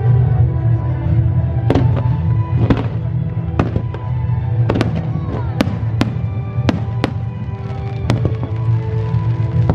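Fireworks going off in about a dozen sharp bangs at irregular intervals, over music that plays throughout.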